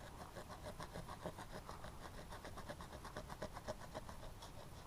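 Hand pruning saw cutting through a small tree branch in quick back-and-forth strokes, about five a second.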